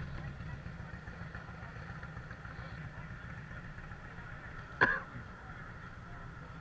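Motorcycle engine running at low speed, a steady low rumble, with one sharp click a little under five seconds in.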